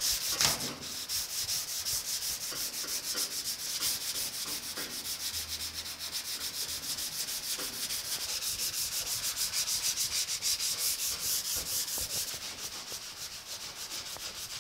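Hand sanding primer on a steel truck door panel with 220-grit sandpaper, folded and on a foam sanding block: quick, steady back-and-forth scratching strokes. A brief knock sounds about half a second in.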